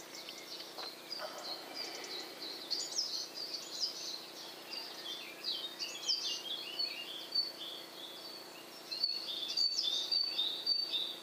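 Small songbirds chirping and singing, with many short, high calls and trills overlapping throughout, over a faint steady hum.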